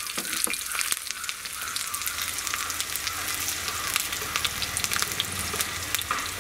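Sliced shallots frying in hot oil in a small kadai for a sambar tempering: a steady sizzle dotted with many small crackling pops.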